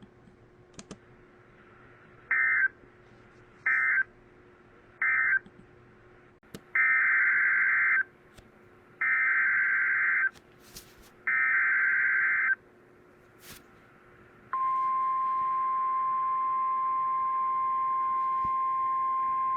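Emergency Alert System SAME data signals: three short buzzy bursts (the end-of-message code), then three longer bursts of about a second each (the header of a new alert). About two seconds later the steady 1050 Hz weather radio warning alarm tone comes in.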